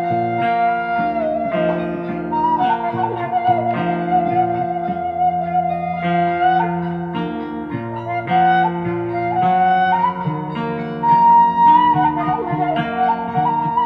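Background instrumental music: a wavering lead melody over a steady accompaniment.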